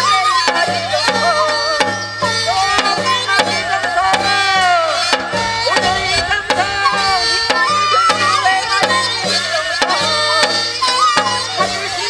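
Korean shaman-ritual (gut) accompaniment music: a drum keeps a quick, steady beat of about three strokes a second under a melody that slides and bends in pitch.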